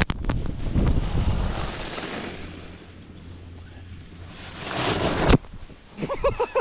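Skis sliding and scraping over packed snow, heard as hissing that swells and stops with a sharp knock about five seconds in, with wind buffeting the action-camera microphone at the start. A short snatch of a voice comes near the end.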